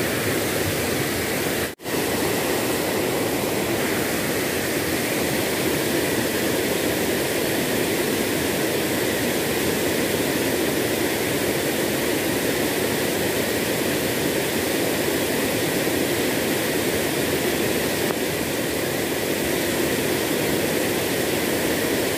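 Small waterfall and rain-swollen river water pouring and churning over rocks: a steady rushing noise, broken for an instant about two seconds in.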